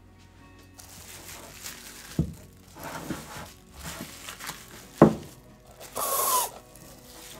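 Kitchen handling sounds while making bread: a few knocks, the sharpest about five seconds in, and a brief rustle with a short squeak about a second later.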